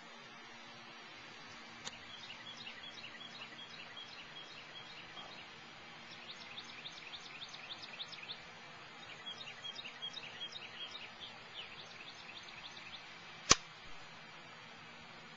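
Small birds chirping in quick repeated trills. Near the end comes a single sharp click: a golf iron striking the ball on a short shot from the rough.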